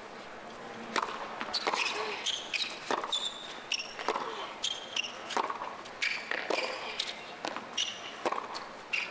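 Tennis rally on a hard court: a steady exchange of racket strikes and ball bounces, one every half second to a second, starting about a second in. Short high squeaks of tennis shoes on the court come between the hits.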